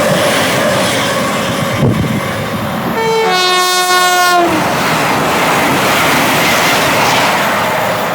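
Train's two-tone horn: a brief high note followed at once by a longer low note of about a second that sags slightly in pitch at the end, over the steady rushing noise of a running train.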